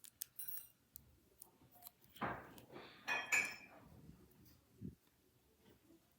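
Tiny plastic Nanoblock pieces clicking and clinking as they are picked through and fitted together, in scattered bursts, the busiest about two and three seconds in.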